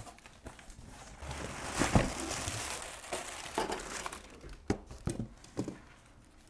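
Unboxing noise: cardboard flaps and plastic wrapping rustling as a plastic-wrapped exhaust fan is lifted out of its box and set on the table. A sharp thump about two seconds in is the loudest sound, followed by a few lighter knocks.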